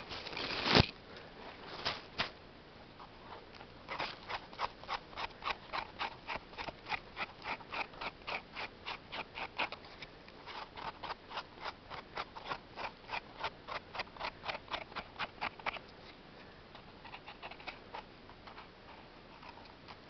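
A loud handling knock on the microphone, then a knife scraping a porcini mushroom stem clean in quick, even strokes, about three a second, which stop a few seconds before the end.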